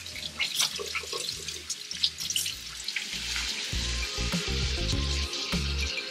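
Kitchen tap running, with a few light clicks and clatter. Background music with a low bass line comes in a little over halfway.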